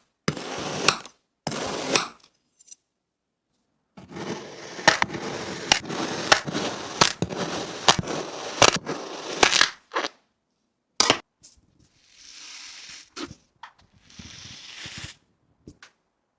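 Kinetic sand being cut with a blade: a grainy, crunchy scraping with sharp clicks, in several short clips broken by sudden silences. There is a long run of cutting in the middle, and softer hissy passages near the end.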